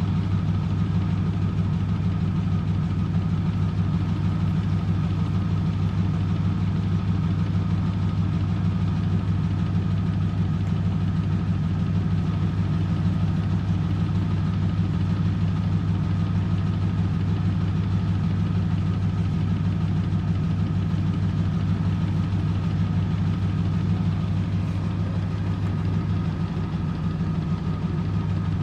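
1997 M eurotech EW 450 washing machine running steadily in its final spin at 400 rpm, with a low hum and a thin steady whine.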